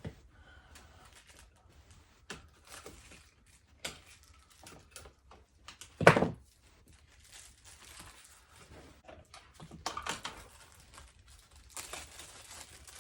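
Packaging crinkling and rustling with small clicks and knocks as a bike headlight is unwrapped and handled, with one loud knock about six seconds in.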